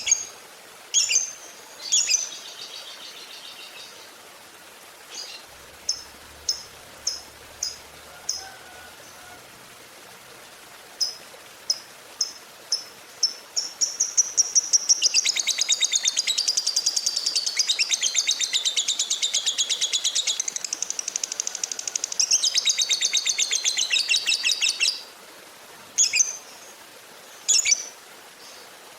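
Lovebird calling: sharp, high single chirps about a second apart, then a long, fast rattling chatter lasting about ten seconds, then a few more chirps near the end.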